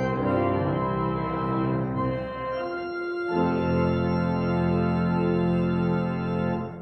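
Organ playing held chords; the harmony shifts about three seconds in, and the last chord is held and then released at the very end.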